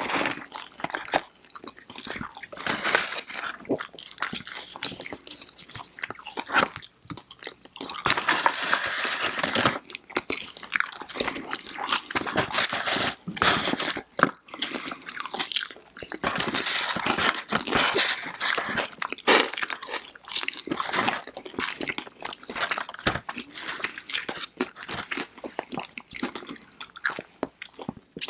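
Close-miked crunching and chewing of breaded fried chicken fingers and crinkle-cut fries, crisp bites and irregular mouth sounds, with longer dense stretches of crunching.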